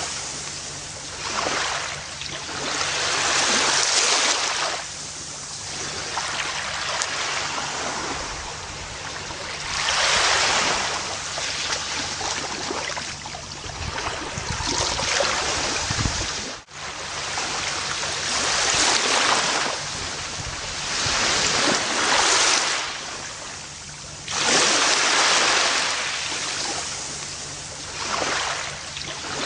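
Gentle ocean waves breaking and washing up a beach, each surge swelling and fading over a few seconds. A brief sudden dropout just past the middle.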